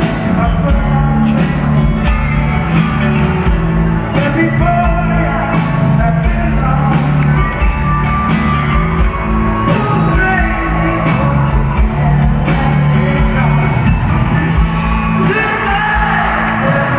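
Live rock band with a male lead singer, amplified through an arena's sound system and heard from high in the seats, with a steady drum beat under sustained bass notes.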